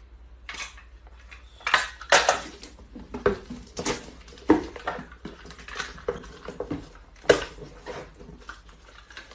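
Small cardboard boxes being handled and stacked, with a handheld packing-tape dispenser used and set down: a string of irregular knocks and short scraping, tearing sounds, loudest about two seconds in and about seven seconds in.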